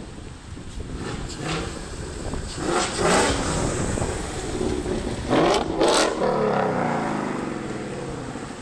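Ford Mustangs driving past one after another on a wet road, engines running over tyre hiss. There are two loud passes, about three and about six seconds in, and after the second the engine note falls in pitch as the car goes away.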